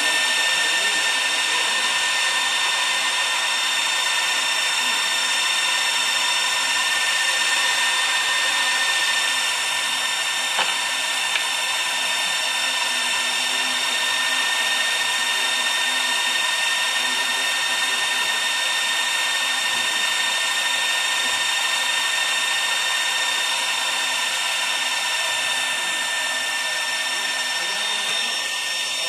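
Three small DC cooling fans under a Peltier cooler running steadily: an even whir with several high, steady whining tones from the spinning blades.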